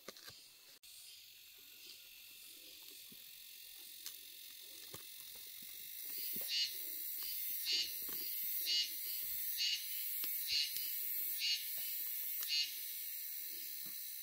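Insects buzzing in the forest: a steady high drone with a pulsed call repeating about once a second, louder from about six seconds in. Faint soft knocks and rustling sit underneath.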